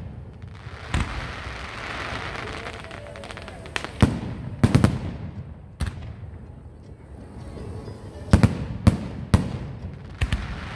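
Aerial firework shells bursting overhead: about nine sharp bangs, bunched in twos and threes, with a crackling hiss of sparks between the first bangs.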